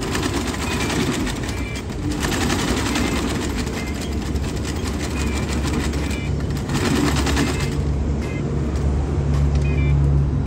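Industrial sewing machine stitching a heavy truck tarp, a fast needle clatter that breaks off briefly about two seconds in and stops near eight seconds. A low steady hum grows louder over the second half.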